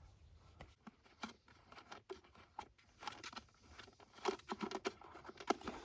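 Faint scattered clicks and rustling as the replacement air filter and air box parts are handled, with a busier run of taps near the end.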